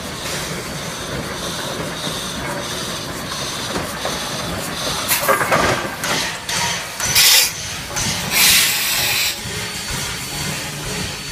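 Shay geared steam locomotive No. 6 passing close by at low speed, its engine and wheels rumbling steadily under regular exhaust beats. From about five seconds in come three loud bursts of steam hiss, the last lasting about a second.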